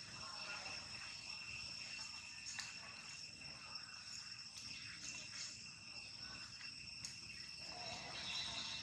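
Steady high-pitched insect chirring, two unbroken high tones held throughout, with a few faint ticks over it.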